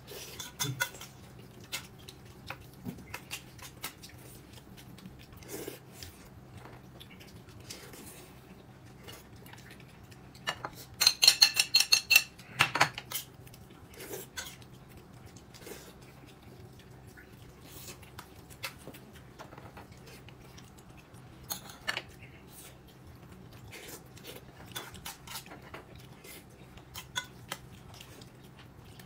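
Eating utensils clinking against a bowl and dishes as someone eats, in scattered light clicks. A louder run of ringing clinks comes a little before the middle.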